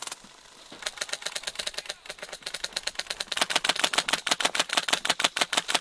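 Airsoft guns firing on full auto: rapid, evenly spaced clacks of BB shots in bursts, louder from about three and a half seconds in.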